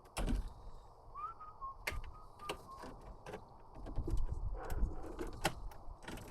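Scattered sharp clicks and knocks of hand work on the car's handbrake parts, with a heavier thump just after the start and a busier run of knocks in the second half. About a second in there is a brief high chirp that rises and then holds.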